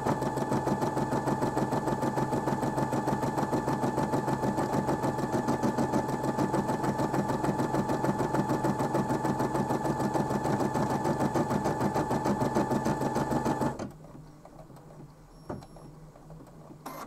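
Brother M280D computerised embroidery machine stitching out a design at a steady speed: a fast, even needle clatter over a steady motor whine. It stops abruptly about fourteen seconds in as the design finishes, and a few faint clicks follow.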